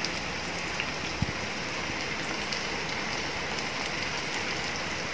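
Chopped onions, green chillies and garlic sizzling steadily in hot oil in a frying pan.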